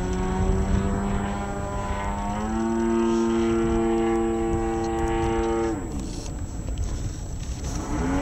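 Extreme Flight Edge 540T radio-controlled aerobatic plane flying overhead, its motor and propeller giving a steady pitched drone. The pitch steps up slightly about two and a half seconds in. It drops sharply as the throttle comes back at about six seconds, then climbs again near the end as power is added.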